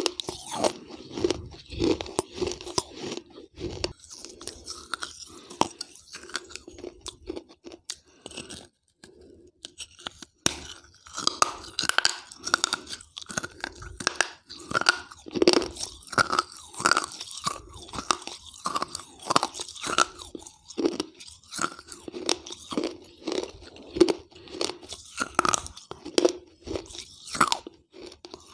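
Close-miked crunching and chewing of pieces of a soaked terracotta clay piggy bank (gullak), with dense crisp crackles as the clay is bitten and ground. A quieter gap comes about a third of the way through.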